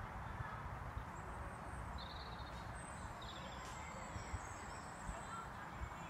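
Outdoor field ambience: a low steady rumble with faint bird chirps, a short call about two seconds in and another about three seconds in.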